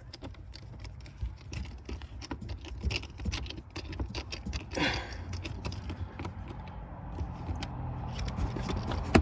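Irregular small clicks, taps and light scraping from a plastic car-interior trim panel being pressed back into place and its screw being put back in with a screwdriver. There is a short hiss about five seconds in.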